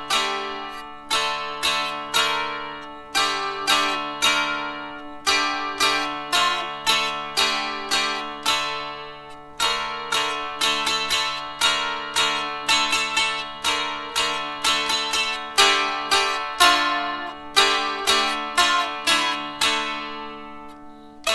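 Dulcimer, a fretted drone zither, strummed in a medieval-style tune: a run of plucked melody notes over steady drone strings that ring on underneath.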